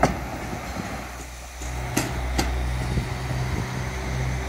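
Class 323 electric multiple unit moving away along the track, its wheels clicking over rail joints at the start and twice more about two seconds in. A steady low engine hum sets in just before that.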